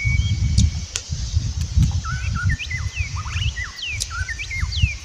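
Wind buffeting the microphone in uneven gusts, with small birds giving many short rising and falling chirps, busiest in the second half.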